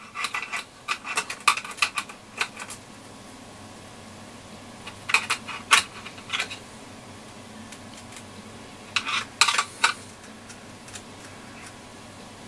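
Small sharp clicks and clatters in three short bursts as the stuck plastic volume knob on a Hacker Super Sovereign transistor radio is pushed and worked loose from its metal faceplate: a run of clicks at the start, more a few seconds later, and a last bunch near the end.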